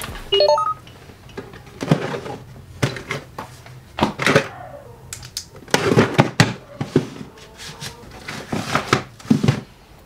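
Knocks, thuds and clatter of objects being handled and set down on a desk, irregular and scattered throughout, with a short rising run of quick notes just after the start.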